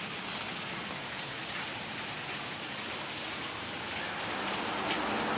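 Steady hiss of street traffic, growing louder near the end as a car approaches.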